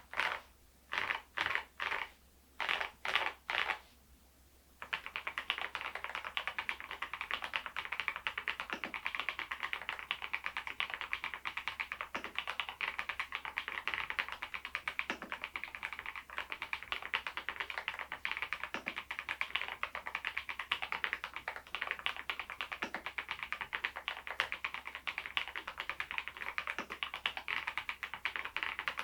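Fast typing on a Machenike K500 PRO mechanical keyboard fitted with Adelie V2 switches: a few short separate bursts of keystrokes, then from about five seconds in a continuous rapid run of key clicks.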